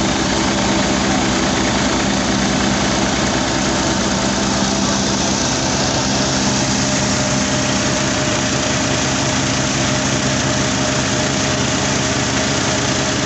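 Massey Ferguson 240 tractor's three-cylinder diesel engine running steadily, driving a flat belt and pulleys to a small grain flour mill (atta chakki). The whir of the grinding mill and belt mixes with the engine.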